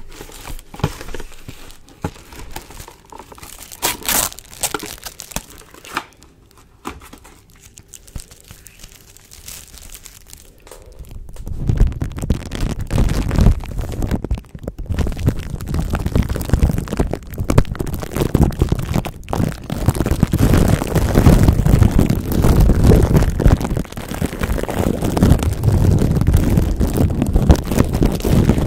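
Clear plastic wrap crinkling as it is handled and stretched. About twelve seconds in it is pressed over a microphone and rubbed against the grille, turning into a much louder, close, dense crinkling with a low rumble.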